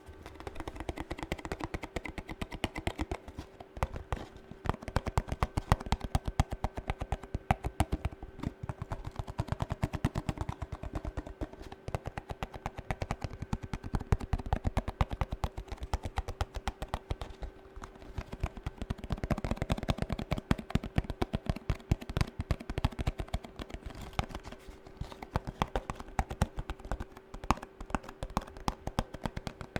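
Fast fingernail tapping, a dense stream of quick clicks with uneven loud peaks, over a faint steady hum.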